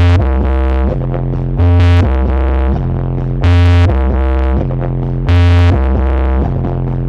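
Loud electronic dance music with a heavy, stepping bass line and synthesizer chords, a louder accent coming round about every second and three-quarters, played through a large horeg sound system.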